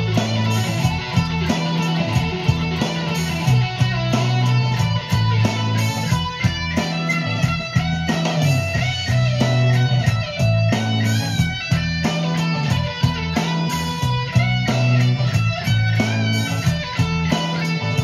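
Electric guitar, a sunburst Fender Stratocaster, playing a boogie, with bent notes in the higher part over a steady low line that moves between a few pitches in a repeating pattern.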